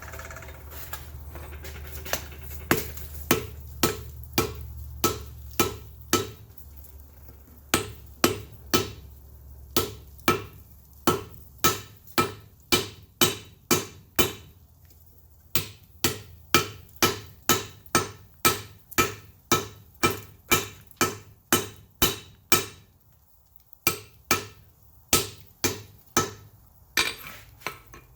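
Hand hammer striking white-hot wrought iron on an anvil, forge-welding the folded bar: sharp ringing blows, a few scattered at first, then runs of about two a second with brief pauses between. A low hum runs under the first dozen seconds and then stops.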